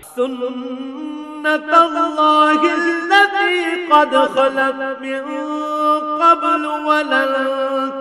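A male qari chanting Quranic Arabic in slow, melodic tajweed, holding long notes with wavering ornaments and stepping slowly between pitches.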